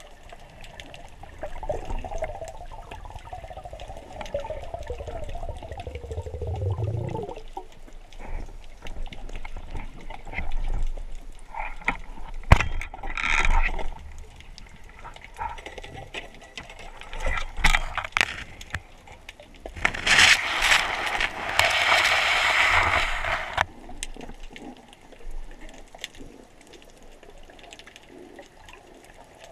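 Underwater sound during a spearfishing dive: muffled water noise with scattered clicks and knocks. A low drone falls in pitch and stops about seven seconds in, and a loud hissing rush lasts about three seconds two-thirds of the way through.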